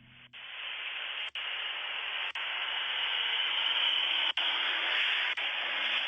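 Steady hiss from a Ring doorbell camera's audio, broken by brief dropouts about once a second.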